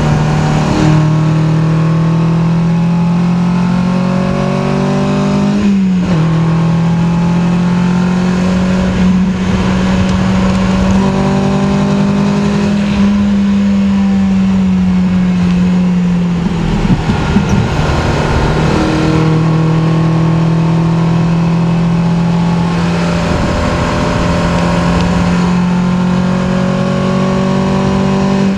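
Cabin sound of a 1972 BMW 2002 tii's inline-four, rebuilt with twin Weber 45 DCOE carburettors, a 304 race cam and high-compression pistons, pulling hard at racing speed. The engine note climbs slowly through each gear and drops sharply at the gear changes, about six seconds in, again around eighteen seconds and right at the end.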